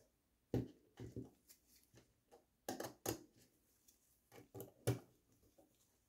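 Screwdriver working the screw of a plastic screw terminal block as a thick cable is clamped in, with gloved hands handling the cable: a scattered series of short clicks and knocks, the loudest about half a second in, around three seconds in and near five seconds in.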